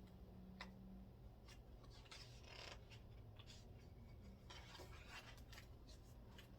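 Near silence with faint rustles and soft scrapes of paper: the pages of a picture book being handled and turned.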